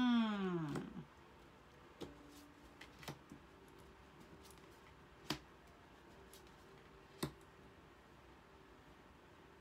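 A short wordless vocal sound from a woman, its pitch rising then falling, then a few sparse light taps and clicks of tarot cards being laid down and handled on a desk.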